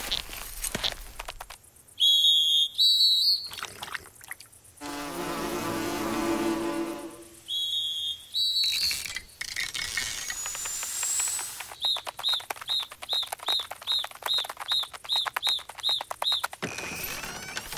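Cartoon sound effects for tiny animated creatures: high squeaky chirps, a longer pitched warbling cry in the middle, and a rising whistle, then a fast even run of about eleven high chirps over light ticking. Soft footsteps on grass come at the very start.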